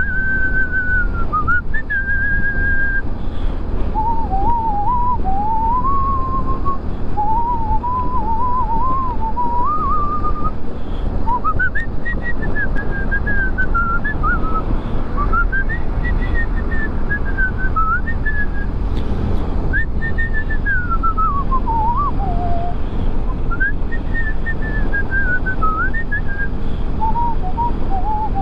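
A man whistling a wavering tune in several phrases, over the steady rush of wind and engine and road noise from a moving motorcycle.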